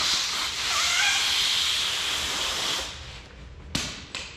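Compressed air hissing from a blowgun, likely blowing out a diesel injector line. It stops about three seconds in, followed by two sharp clicks.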